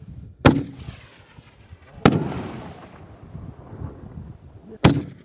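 Three sharp bangs from Plasma Torch 1.4G consumer aerial firework shells, about a second and a half and then nearly three seconds apart. The middle bang trails off slowly over a couple of seconds.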